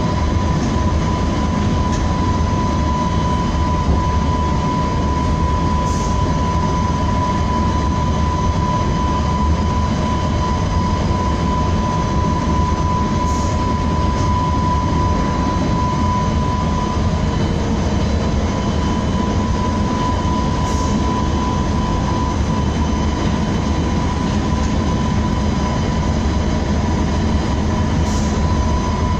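Low-floor passenger train running along the track, heard from inside the driver's cab: a steady low rumble with a steady high whine that holds one pitch. A short faint high chirp comes about every seven seconds.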